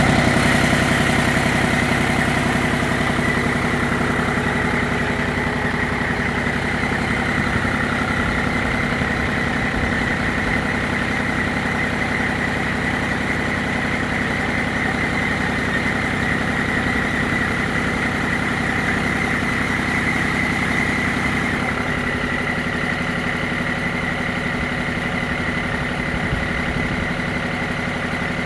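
Machinery running steadily with a constant hum and a strong high whine. Its tone shifts slightly about 22 seconds in.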